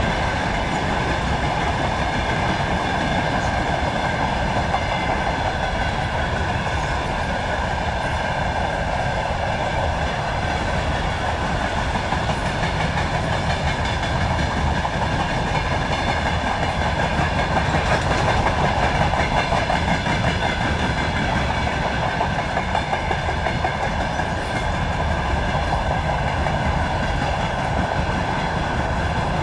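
Freight train of covered grain hopper wagons rolling past close by: a steady rumble and clatter of wheels on the rails, with a few steady high-pitched tones over it.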